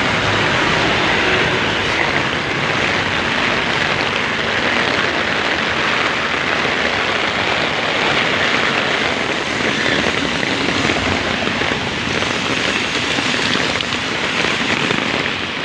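Heavy rain falling steadily on an umbrella overhead, a loud, even hiss.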